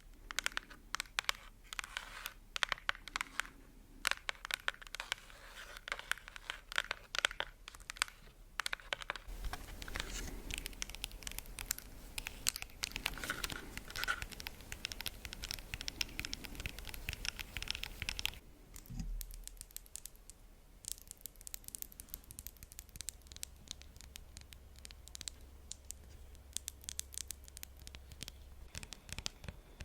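Close-miked ASMR handling of wax melts and their plastic packaging: rapid fingernail tapping and crinkly scratching. The sound is scattered sharp taps at first, then a dense crackling stretch in the middle, then sparser taps again.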